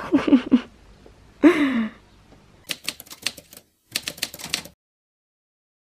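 Two short vocal sounds with falling pitch, then a typewriter keystroke sound effect: two quick runs of clattering key strikes lasting about two seconds, ending suddenly.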